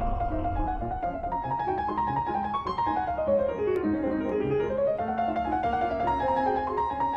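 Background music: a keyboard melody in quick runs of notes that fall and then climb again.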